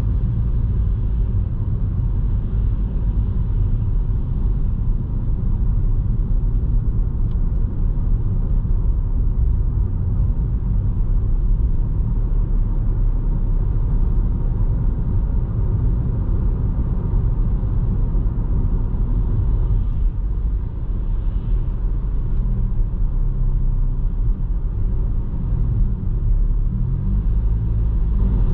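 A Toyota Vitz driving along a road, giving a steady low rumble of road and engine noise. The engine's pitch wavers a little near the end.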